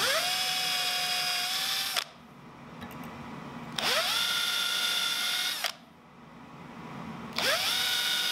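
Power drill boring pilot holes through a steel piano hinge's screw holes into pine: three runs, each spinning up with a rising whine, holding steady for about two seconds, then stopping.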